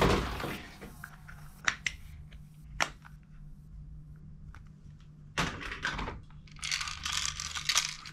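Hard plastic toy guns and accessories being handled and shifted in a box of toys: scattered sharp clicks and knocks of plastic on plastic, getting busier near the end.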